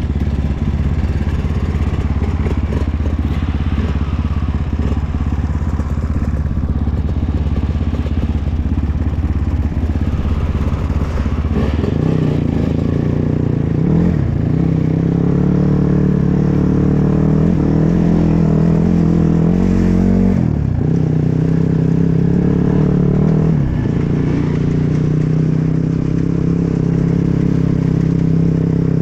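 Dirt bike engine on an off-road ride: a choppy low-revving rumble at first, then about twelve seconds in it picks up and holds higher revs, the pitch dropping and climbing again a few times as the throttle is rolled off and reopened.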